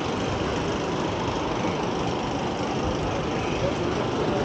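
City street traffic: a large vehicle's engine running under a steady hiss of road noise.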